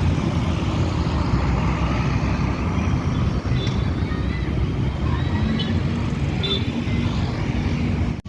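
Heavy road traffic, buses and trucks passing, a steady low rumble, with a few faint short high notes in the middle.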